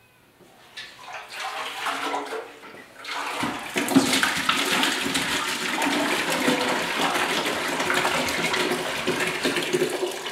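Vinegar pouring in a steady stream out of a motorcycle fuel tank into a plastic bucket, starting about three and a half seconds in. Quieter sloshing and handling sounds come before it as the tank is tipped.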